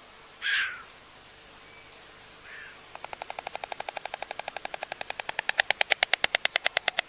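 White stork bill-clattering: a fast, even rattle of about ten clacks a second that starts about three seconds in and grows louder past the halfway point. A single short sound comes about half a second in.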